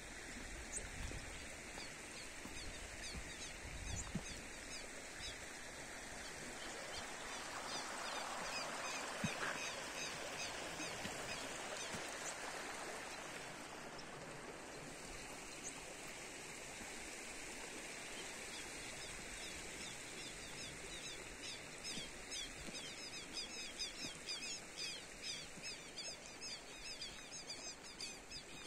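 Shallow stream running over rocks, swelling for a few seconds about a third of the way in, with rapid high chirping calls repeating throughout and growing denser toward the end.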